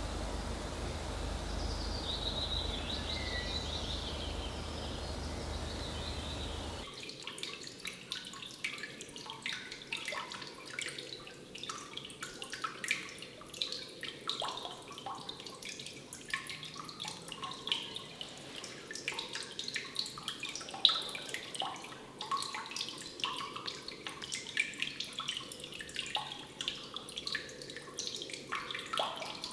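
Water dripping, many irregular drips a second, some louder than others, starting after a sudden change about seven seconds in. Before that, a low steady rumble of outdoor ambience with a few faint high chirps.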